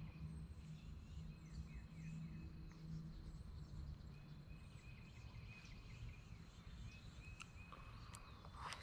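Faint outdoor ambience: small birds chirping repeatedly, a thin steady high insect buzz and a low steady hum, with a brief rustle near the end.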